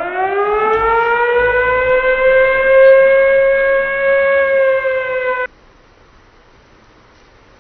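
Siren sound effect: one long wail that rises in pitch at the start, holds steady, then cuts off suddenly about five and a half seconds in.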